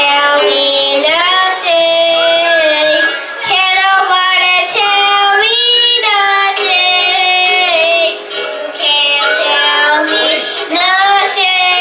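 A group of young boys singing a song together into a microphone, in phrases of long held notes.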